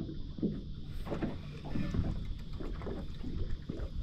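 Small waves lapping and slapping irregularly against the hull of a small fishing boat, with wind rumbling on the microphone.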